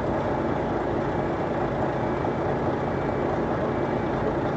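Heavy vehicle engine running steadily.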